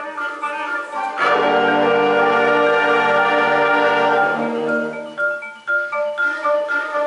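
Concert band playing. Quick repeated mallet-percussion notes are followed, about a second in, by the full band entering on a loud held chord. The chord dies away after a few seconds, and the rapid mallet notes return.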